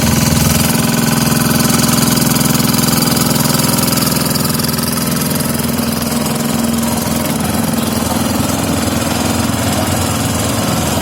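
Engine of an FVR850D vibrating road roller running steadily.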